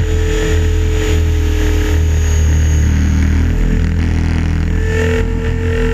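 Align T-Rex 550 electric RC helicopter heard from its onboard camera during aerobatics: a steady motor and rotor whine over a heavy low rumble of rotor wash and wind on the microphone. The whine grows slightly stronger about five seconds in.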